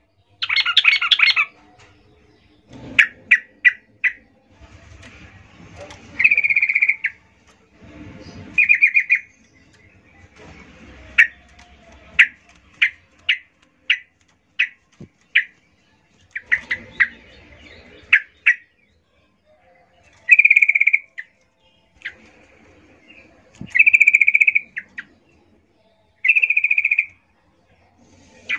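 Yellow-vented bulbul calling in short bursts of bubbly chattering notes, with single sharp chips between them, a burst every second or two. The uploader presents it as a female calling for a male.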